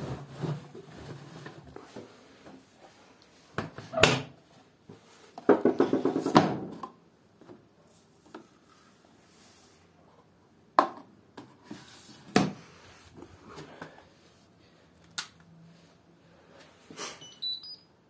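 Laundry being handled and pushed into the drum of a Hotpoint Ariston front-loading washing machine, with several sharp knocks and clunks from the machine's door and detergent drawer. Near the end there are a few short electronic beeps from its control panel.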